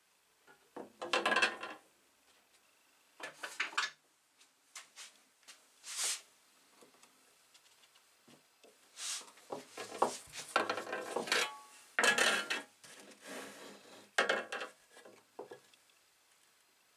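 Steel screwdriver tip scraping and clinking against the handle fasteners and rusty steel plate of an old hand saw, in short irregular strokes with pauses between them.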